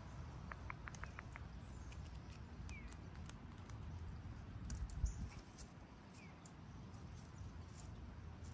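Faint garden ambience: a quick run of small bird chirps about half a second in and a few faint falling chirps later, over a low rumble, with one thump about five seconds in.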